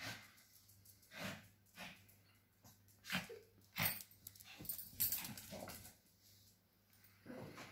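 Lhasa Apso dogs at play making a scattering of short, soft dog sounds: breathy huffs and small yips, about a second apart, with a slightly longer run about five seconds in.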